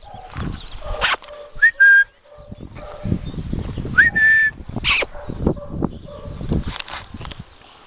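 A person whistles twice, about two seconds apart, each a short note that slides up and then holds. Under the whistles are irregular scuffing and crunching steps on gravelly dirt.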